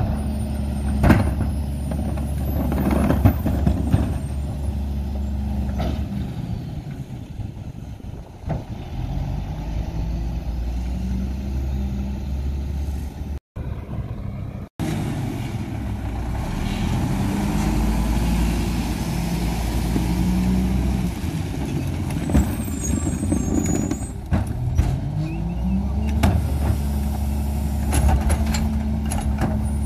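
Mack LE garbage truck's diesel engine running, its revs rising and falling several times as it speeds up to drive the McNeilus rear loader's hydraulic packer. Sharp clanks of loading come now and then.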